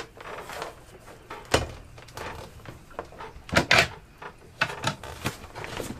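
Electrical cables being pulled and handled by hand: rustling and scraping, with a few sharp knocks, the loudest about a second and a half in and again around three and a half seconds in.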